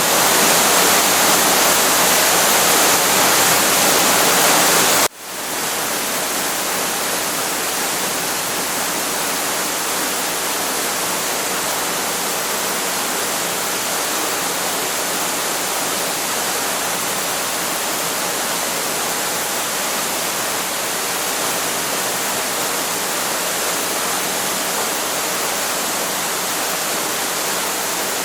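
Waterfall: a steady rush of falling water. About five seconds in it cuts out for an instant and comes back a little quieter.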